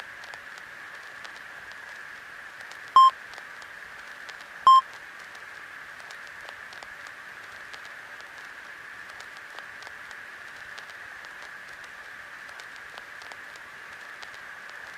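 Two short electronic beeps about a second and a half apart, over a steady hiss.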